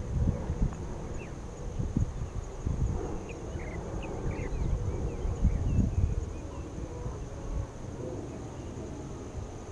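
Wind gusting on the microphone, a rumble that swells and fades, over a steady high-pitched hum, with a few faint short chirps near the middle.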